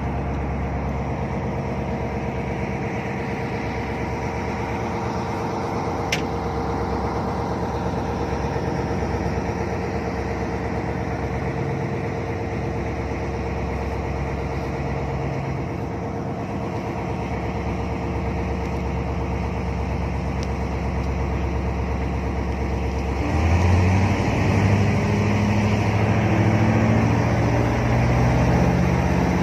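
Jet boat engine running steadily at a low, even pitch, then about three-quarters of the way in speeding up, louder and rising in pitch as it picks up speed.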